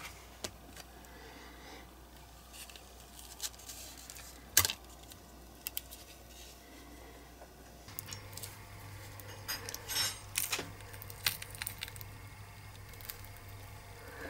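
Scattered small clicks and taps of hands handling a silicone mould and peeling a cast part out of it, with one sharp click about a third of the way in and a cluster of clicks in the second half.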